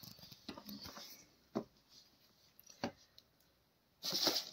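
Soft rustling and handling noises as knit fabric shoes are picked up and set down, with two light taps about a second and a half and three seconds in, and a louder rustle near the end.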